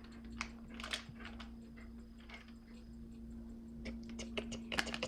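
Faint scattered clicks and light taps of hands working butter and utensils over a mixing bowl, more of them near the end, over a steady low hum.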